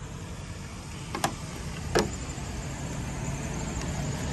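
Steady low rumble of idling semi-truck diesel engines, with two short sharp knocks about one and two seconds in.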